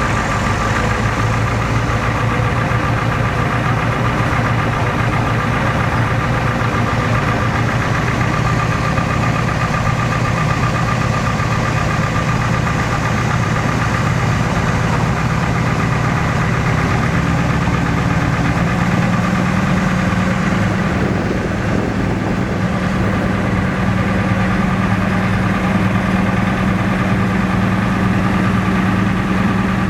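An engine running steadily, with a low hum that steps up a little in pitch about two-thirds of the way through.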